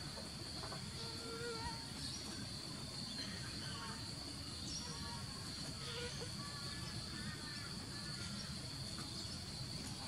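A steady, high-pitched insect drone, with faint, short, wavering whistled calls scattered through it.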